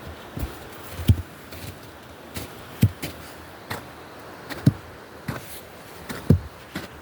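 Footsteps of someone walking with the camera: about nine dull, low thuds at an uneven walking pace over faint outdoor background noise.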